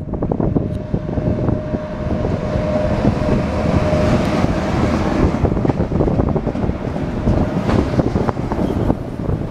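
3ES5K electric freight locomotive passing close by, with a steady rumble and many wheel clicks over the rail joints. A steady whine sounds for the first few seconds, then the first freight wagons roll past.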